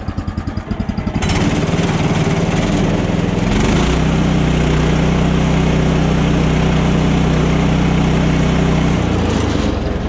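Woodland Mills HM130 portable sawmill's gasoline engine running cold with the choke on. It starts at an uneven, pulsing idle, is revved up about a second in, goes higher again around four seconds in and holds steady, then drops back near the end.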